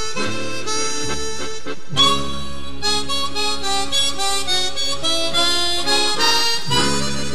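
Instrumental background music: a melody of changing notes over held chords, with a new phrase coming in more strongly about two seconds in.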